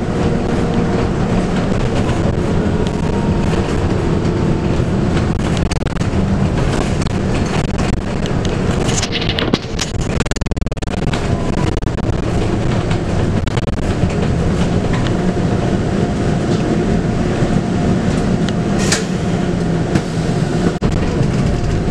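Scania K280UB bus under way, heard from inside the cabin: its 9.3-litre five-cylinder Scania DC9 diesel running through the ZF Ecomat automatic gearbox, over a steady rumble of road and tyre noise, with scattered rattles and knocks from the body.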